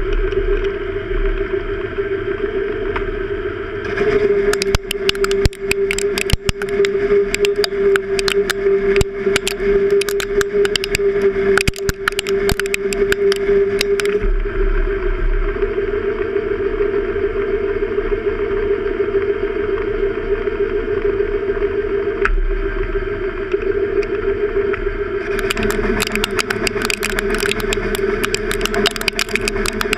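Metal lathe running steadily as its tool cuts a spinning metal bar, a constant machine hum throughout. Dense crackling ticks come in from about four to fourteen seconds in and again over the last few seconds, the chips breaking off the cut.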